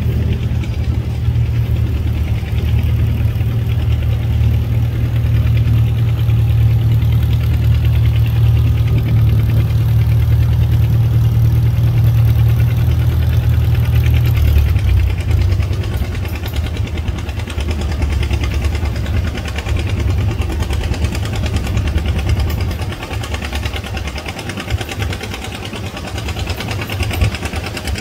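Antique farm tractor engine running with a steady, low, even note. About halfway through the note changes and gets a little quieter.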